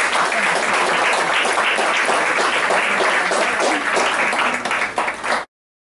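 Audience applauding: dense, steady clapping that cuts off suddenly about five and a half seconds in.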